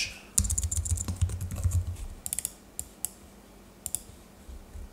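Computer keyboard typing: a quick run of keystrokes in the first two seconds, then a few scattered key clicks.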